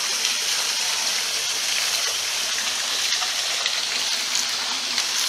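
Steady rush of flowing water, an even hiss.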